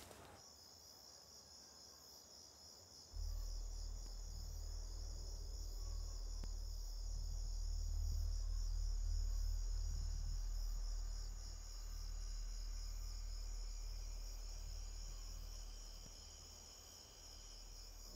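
Insects chirping steadily in a high, finely pulsing trill. A deep low rumble comes in about three seconds in, swells, and fades near the end; it is the loudest sound here.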